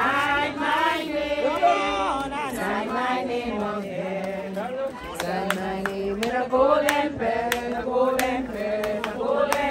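Mourners singing together at a graveside, a slow hymn-like chant of several voices with held notes. From about halfway through, a run of sharp, evenly spaced taps sounds along with the singing.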